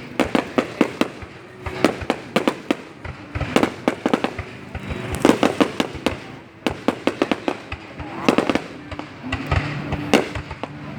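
Aerial fireworks going off: dense volleys of sharp bangs and crackles that come in waves every couple of seconds, with music playing underneath.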